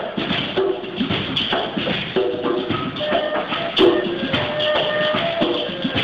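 Acoustic organic-music ensemble of handmade natural instruments: a bamboo flute plays a melody of short held notes over shaken rattles and tapped hand percussion.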